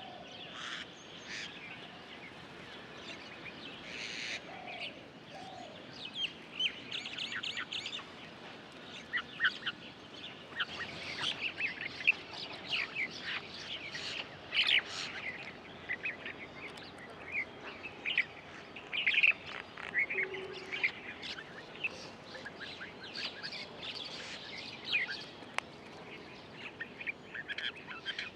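Several birds chirping and calling, a busy run of short call notes that grows denser about a third of the way in.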